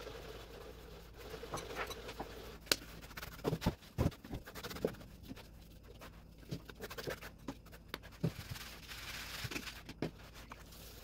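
Hands rubbing and rolling semolina grains in a large bowl, with scattered knocks and taps, then a soft hiss of semolina shaken through a drum sieve near the end.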